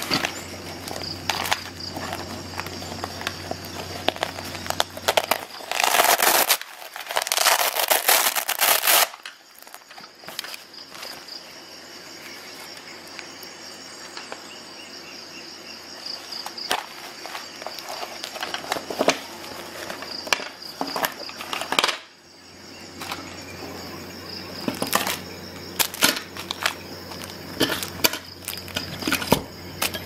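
A nylon MOLLE first-aid pouch and its Velcro and snap fasteners being handled: rustling and scattered clicks, with one loud harsh stretch of about three seconds roughly a quarter of the way in.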